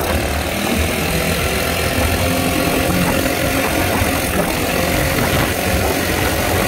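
Dune buggy engine running steadily as the buggy is driven along, with a continuous rush of driving noise.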